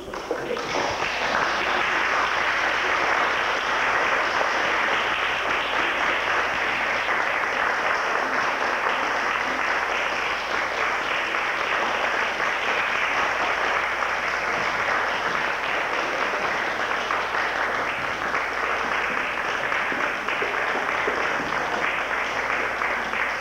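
An audience in a hall applauding steadily, a dense mass of clapping that starts all at once and dies away at the very end.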